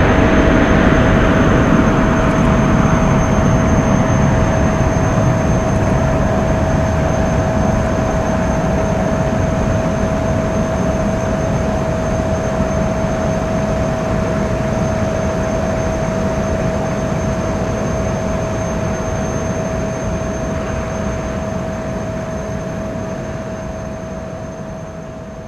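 Airbus A380 airliner's jet engines at takeoff power: a loud, steady rumble and hiss with a constant whine that slowly dies away as the aircraft climbs off.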